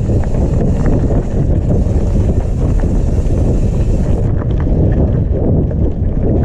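Wind buffeting the microphone over the low rumble of a mountain bike rolling fast down a rocky gravel trail, with a few sharp clicks and rattles of the bike over stones around the middle.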